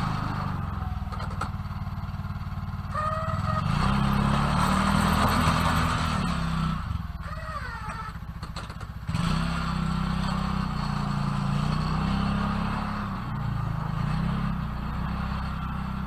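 Engine of a snow-plowing vehicle running and working as it plows snow, its pitch rising and falling, with a couple of short squeals.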